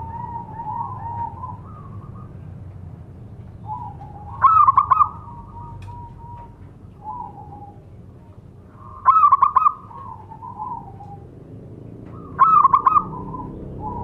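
Zebra dove (perkutut) singing its cooing song: three phrases about four seconds apart, each a loud burst of quick rippling notes that trails off into softer coos.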